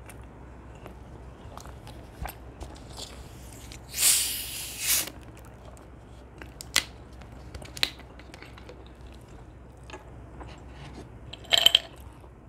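Plastic Coca-Cola bottle being opened: a hiss of escaping carbonation about four seconds in, lasting about a second, with scattered clicks of plastic handling. Near the end, ice clinks against a glass mug as it is lifted.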